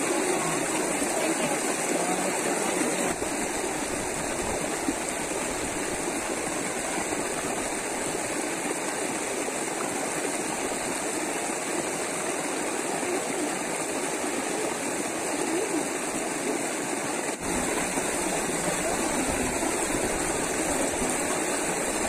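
Rocky mountain stream water running steadily over stones into a pool, a constant even rush with no breaks.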